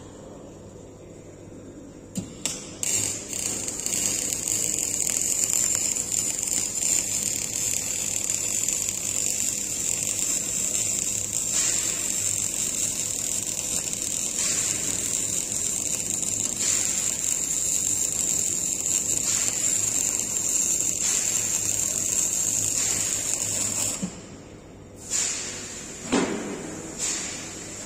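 MIG welding arc: a few sputtering starts about two seconds in, then a steady crackling hiss for about twenty seconds that stops abruptly. A few knocks follow near the end.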